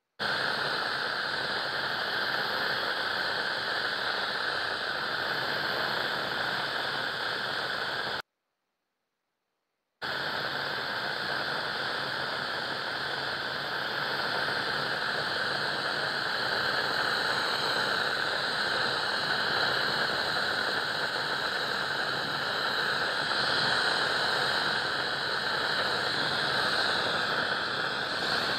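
Glassworking torch flame burning with a steady hiss while glass tubing is heated in it. The sound cuts out completely for about two seconds a third of the way in, then comes back.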